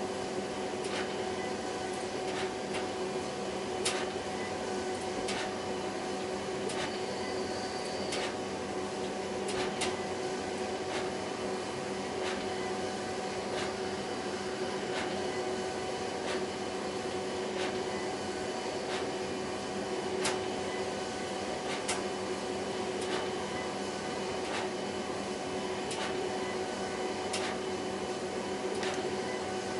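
HP Designjet 5000ps large-format inkjet printer printing: a steady mechanical whir with a steady hum, and a sharp click about every second or so.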